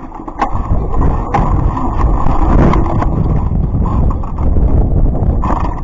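Heavy low rumble of wind buffeting the microphone and wheels rolling over concrete, with a few sharp knocks.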